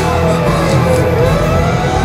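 Live rock band playing loud through the PA: a held high note dips steadily in pitch, bottoms out about a second in, then slides back up.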